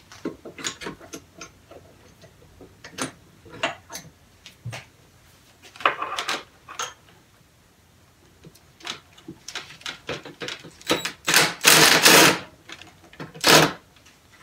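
Sharp metallic clicks and knocks as engine parts and tools are handled, then a cordless driver running in three short bursts near the end, the longest about a second, as it unscrews the engine's cylinder bolts.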